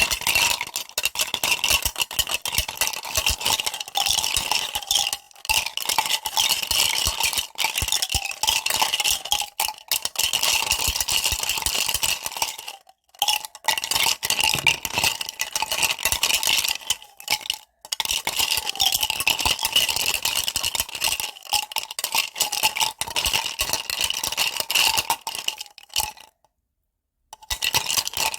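Slime being squished and worked by hand: a dense run of small wet clicks and crackles, broken by short pauses and a gap of about a second and a half near the end.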